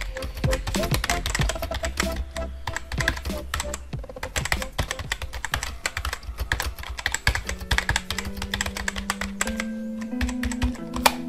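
Keyboard typing sound effect: a rapid, continuous run of key clicks as on-screen text types itself out, over background music. A low bass in the music drops out about four seconds in, and held notes come in from the middle on.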